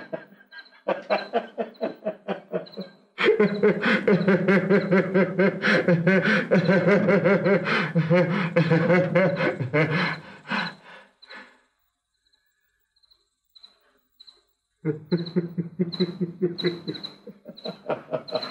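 A man laughing hard in rapid, breathy bursts, breaking off for a few seconds near the middle before laughing again. A faint high chirp repeats a couple of times a second behind it.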